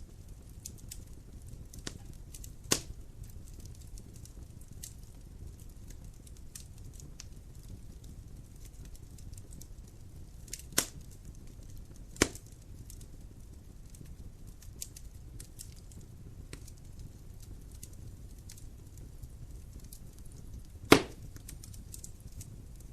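Dry firewood burning in a fireplace: a steady low rumble of flame with frequent small crackles and a few sharp pops, the loudest about 21 seconds in.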